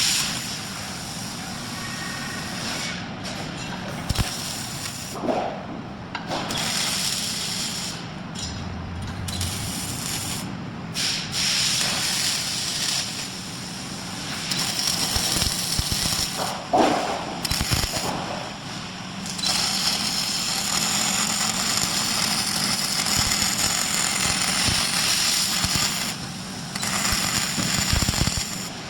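MIG welding arc from a robotic welder crackling and hissing steadily, with several brief breaks.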